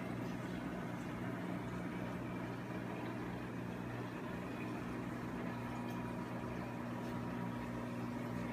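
Steady low hum of aquarium aeration equipment, with the hiss of air bubbles streaming up through the tank water; a second, slightly higher hum joins about halfway through.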